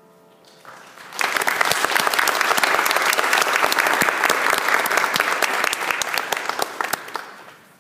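Audience applause after a song, starting suddenly about a second in and fading out near the end.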